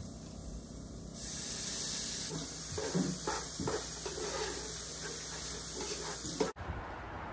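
Sliced onions and green peppers sizzling in a pot, stirred with a wooden spatula that scrapes now and then. The sizzle starts about a second in and cuts off suddenly near the end.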